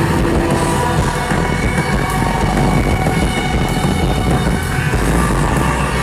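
Rock band playing live and loud, led by an electric guitar strummed hard over bass and drums.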